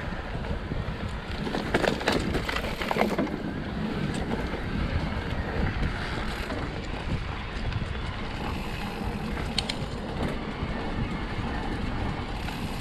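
Mountain bike riding along a dirt trail: a steady rush of wind on the microphone with tyre rumble and frame rattle over the ground. There is a cluster of knocks and rattles about two to three seconds in and a sharp click about nine and a half seconds in.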